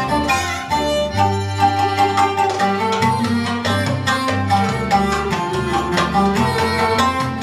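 Live band playing Middle Eastern-style music: a violin melody over double bass notes, with a hand drum keeping a steady rhythm.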